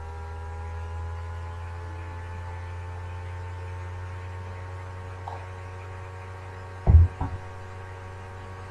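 Steady low electrical hum, with a few faint steady tones above it. About seven seconds in there is a brief low thump, then a smaller one.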